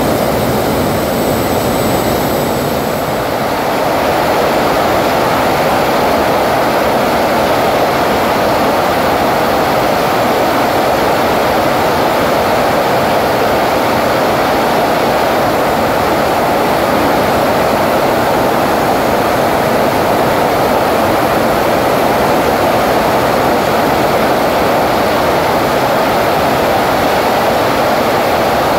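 Homemade jet engine running at high power on a thrust stand, producing about 27 kg of thrust: a loud, steady rush of exhaust. A faint high whine fades out in the first few seconds.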